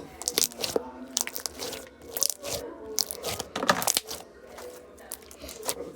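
Crunchy slime being squeezed and worked by hand, giving a run of irregular crackling crunches.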